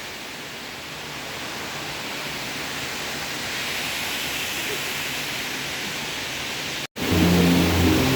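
Steady rush of falling water from the 116 m Kirindi Ella waterfall, an even noise. It cuts out abruptly near the end and music starts.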